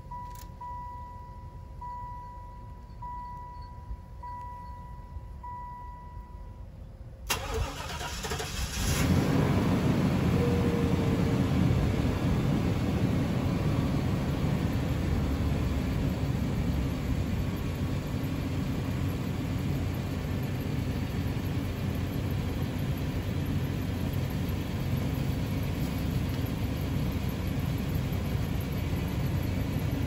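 A car's warning chime beeps steadily for several seconds. Then a stock Chevrolet Caprice V8 is cold-started at about 15 °F: the starter cranks for about a second and a half, the engine catches, and it settles into a steady, quiet idle that eases down slightly.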